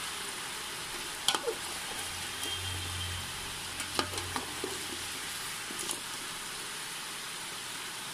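Chicken pieces sizzling steadily as they fry in hot oil in a metal pot, cooking off their water. A metal slotted spoon clicks and scrapes against the pot a few times as the meat is stirred.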